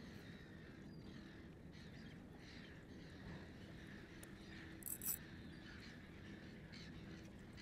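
Quiet waterside ambience with faint bird calls and a faint, low, steady hum. A brief high-pitched hiss comes about five seconds in.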